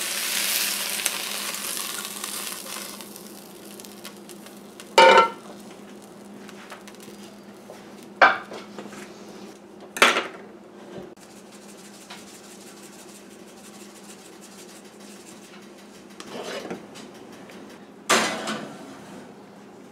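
Frying food sizzling in a square copper-coated nonstick pan for the first few seconds, then several sharp metal clanks of pan and utensils a few seconds apart, over a steady low hum. Near the end comes a louder clank as the pan goes into the oven.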